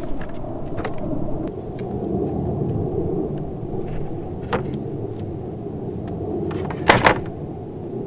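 Plywood floor panels knocking against each other and the car body as they are lifted out of a small car's cargo area: a few sharp knocks, the loudest a double knock near the end, over a steady low rumble.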